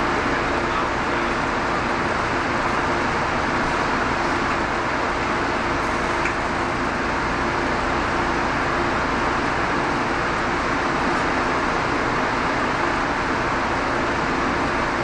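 Inside a subway car standing at the platform before departure: a steady rush of air conditioning and onboard equipment, with a faint constant hum.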